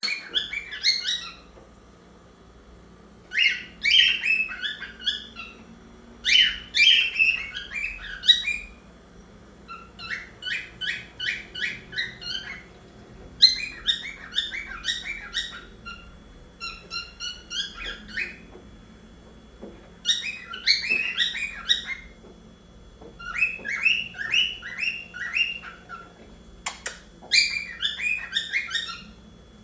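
Pet cockatiel singing in about nine bouts of quick chirping notes, each lasting one to two seconds, with short pauses between.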